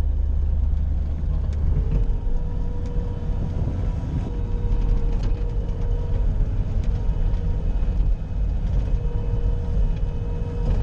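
Bobcat skid-steer loader's engine running steadily under load, with a steady whine that comes in about two seconds in.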